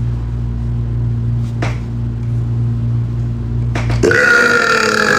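A steady low hum, then about four seconds in a loud, drawn-out burp lasting around a second and a half.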